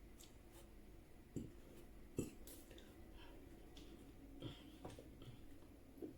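Near silence: room tone with a handful of faint short clicks and soft knocks scattered through it.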